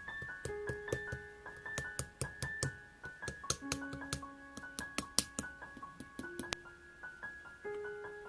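Background music: a soft electric piano melody of held notes, with many short sharp clicks scattered through it.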